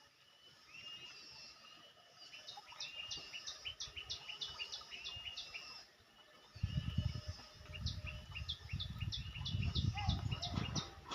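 A bird calling in quick runs of short, evenly spaced chirps, two long runs in all. A loud low rumble comes in about six and a half seconds in and lasts to the end.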